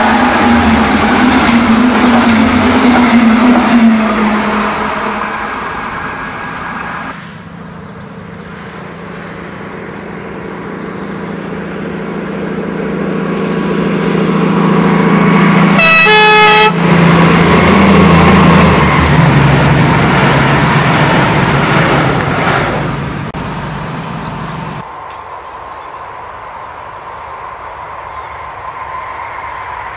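BR 218 diesel-hydraulic locomotive hauling double-deck coaches past at speed, its engine drone and wheel noise fading as the train goes by. Another BR 218-hauled train then approaches, sounds a short horn blast about sixteen seconds in, and passes loudly before fading.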